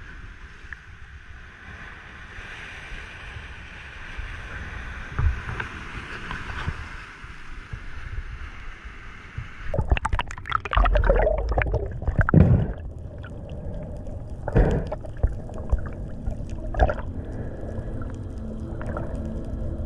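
Surf washing against rocky shore with wind for about the first ten seconds. Then a sudden change as the camera goes into the sea: splashing, gurgling and rumbling water, with a few louder bursts of bubbles.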